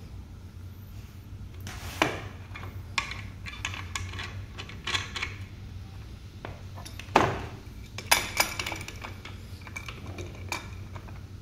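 Metal tools and axle hardware clinking and knocking as a scooter's front wheel is refitted and its axle nut is taken up with an adjustable wrench. Separate clinks come at irregular intervals, the loudest about seven seconds in and a quick cluster just after, over a steady low hum.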